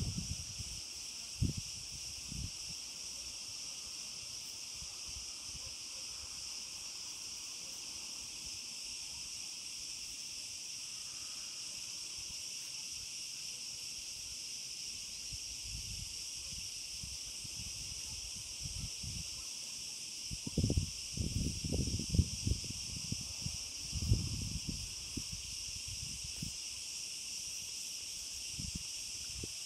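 Steady high-pitched chorus of insects chirring without a break. A cluster of low bumps and rumbles comes about two-thirds of the way through.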